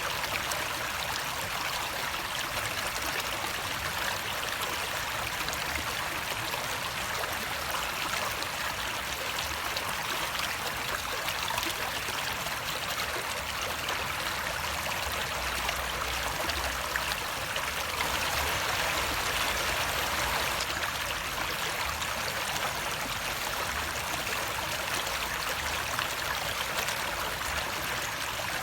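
Running water flowing steadily, a constant rushing wash that swells a little about two-thirds of the way through.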